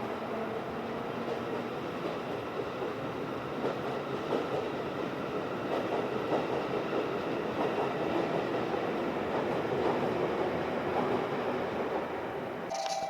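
A train running on the tracks, with a steady rumble of wheels and running gear and light clicks over the rails. It grows louder toward the middle and eases off near the end.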